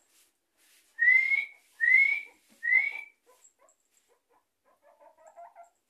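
Guinea pig wheeking, three loud rising whistles about a second apart, the begging whistle guinea pigs give for food.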